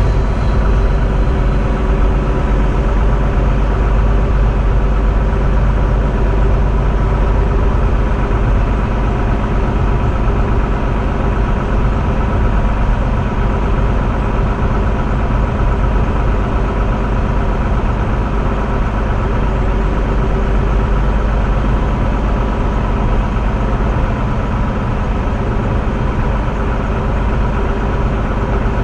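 Train running slowly along the track: a steady low rumble with a constant hum from the train's drive and equipment.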